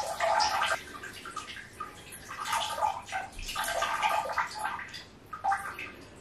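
Toilet flushing: water rushing and gurgling in uneven surges, dying away about five and a half seconds in.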